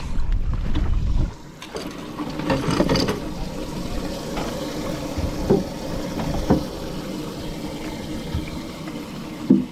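Water sloshing and lapping against a small fishing boat's hull, with a low rumble in the first second and a couple of knocks near the end.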